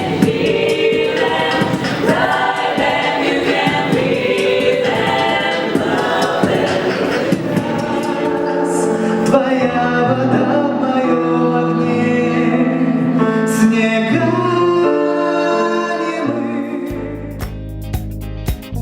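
A choir singing, with strummed guitar and bass notes coming in near the end.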